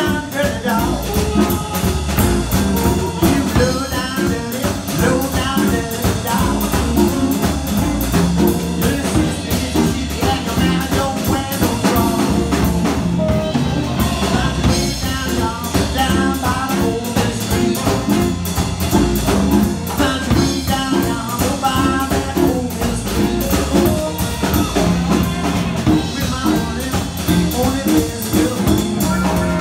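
Live electric blues band playing: amplified blues harmonica played into a hand-held microphone, wailing and bending notes over electric guitar, electric bass and a drum kit.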